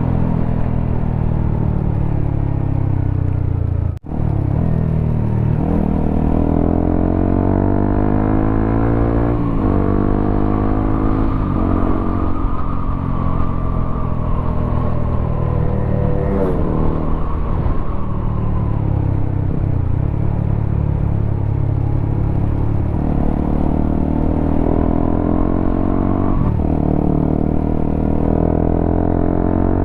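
Honda CBR motorcycle fitted with a WRX K3 oval aftermarket exhaust, being ridden: the engine note climbs in pitch and drops back again and again as the rider works the throttle and gears. The sound cuts out for an instant about four seconds in.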